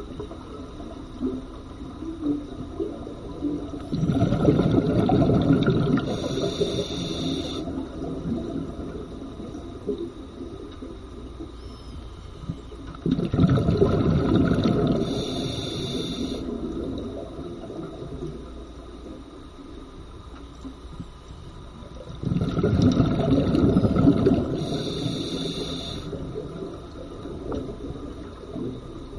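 Scuba breathing through a regulator underwater: three slow breath cycles, each a long rumbling exhalation of bubbles followed by a short hiss from the regulator, about nine seconds apart.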